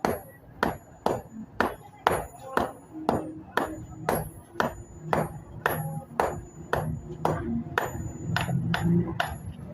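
Hammer striking iron on an anvil in a steady rhythm, about two blows a second, each with a bright metallic ring: hand forging of a steel tool.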